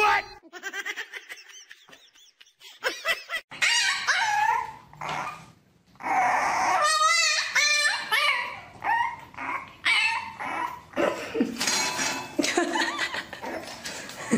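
A puppy yipping and whining in a run of short, high-pitched calls that starts a few seconds in.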